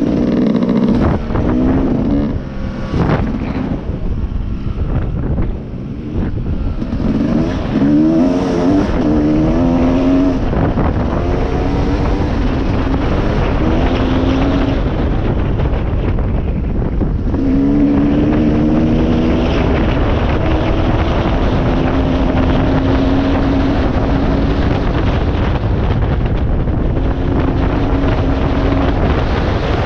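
Dirt bike engine running under way, its revs climbing and dropping back again and again as the rider accelerates, with wind rushing over the microphone.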